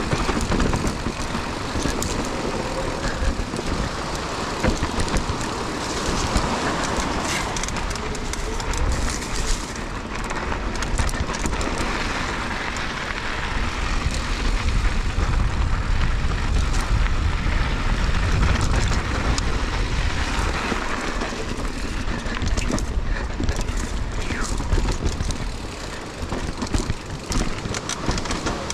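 Mountain bike being ridden over a rocky dirt trail: tyres on dirt and rock and the bike rattling, with irregular clicks and knocks. Wind rumbles on the microphone throughout, heaviest in the middle stretch.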